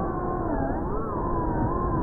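FPV quadcopter's brushless motors and propellers whining as picked up by the onboard action camera. The pitch rises and falls smoothly with the throttle, over a low rush of wind.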